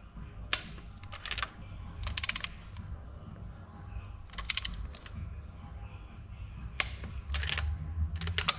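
Ratchet wrench clicking in short quick runs, several times, as its handle is swung back between turns.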